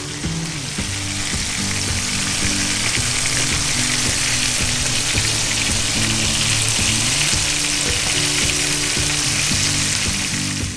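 A frying pan of butter, onions, garlic and wine sizzling and bubbling steadily as it reduces, with halved cherry tomatoes being added to it.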